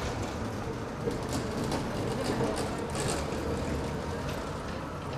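Articulated city tram passing close by: a steady rumble of wheels on the rails, with a few short high-pitched clicks and squeaks between about one and three seconds in.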